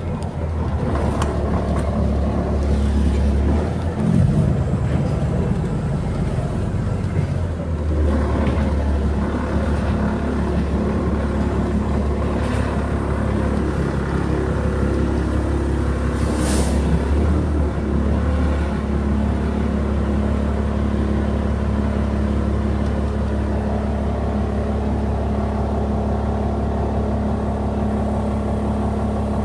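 City bus running, heard from inside the passenger cabin: a steady engine drone with road rumble, the note shifting a few seconds in as the bus changes speed. A brief hiss comes about sixteen seconds in.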